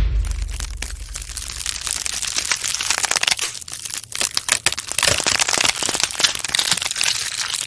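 Wooden pencil crackling and splintering as bench-vise jaws crush it, a dense run of small cracks that grows a little louder about five seconds in.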